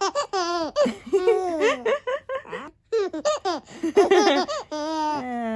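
A baby laughing and squealing loudly in a string of short, high-pitched bursts that slide up and down in pitch, with a brief pause about three seconds in.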